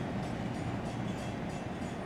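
Baldwin S12 diesel switcher locomotive running as it moves slowly along the track with covered hoppers. A steady low engine rumble is heard, with a light rhythmic clatter of a few beats a second.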